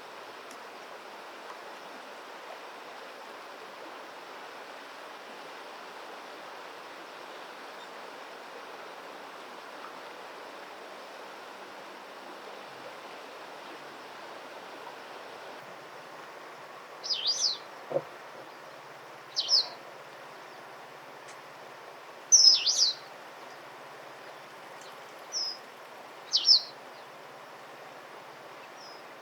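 Eastern spot-billed duckling giving loud, short, high-pitched peeps: about six calls, starting about halfway through, the loudest near the end. These are the contact calls of a duckling separated from its mother. Under them runs a steady rushing background like flowing water.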